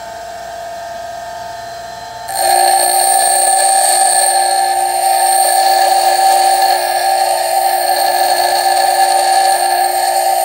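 Bench grinder running, then about two seconds in a twist drill bit is pressed against the grinding wheel and a louder, rougher grinding sound takes over as the drill's cutting edge is ground, holding steady.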